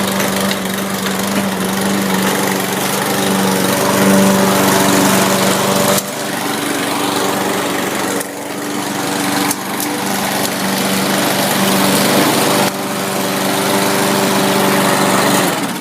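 Small lawnmower engine, fitted with a little aftermarket exhaust tip, running loud and steady. It cuts off near the end.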